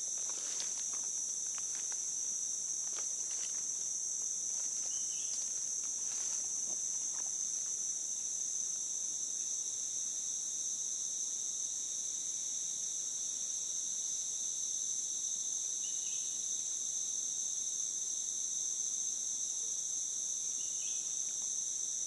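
Steady high-pitched chorus of forest insects, holding an even level throughout. A few faint rustles and steps through the undergrowth come in the first several seconds.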